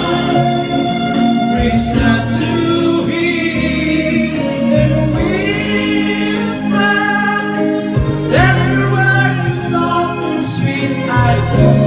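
Background song with sung vocals over instrumental accompaniment.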